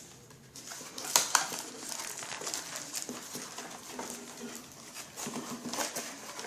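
A puppy crying, over the clicks and rustles of toy packaging being handled.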